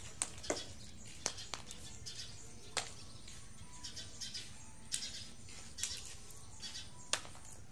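Small plastic toy cars being pushed and dug through loose dirt: scattered light clicks and knocks of plastic on soil and on other toys, with soft scraping between them.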